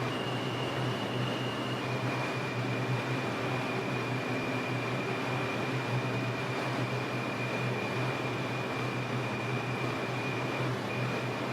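Inside an R142 subway car running between stations: a steady rumble and hum with a thin high whine that steps down in pitch about two seconds in and dips briefly near the end.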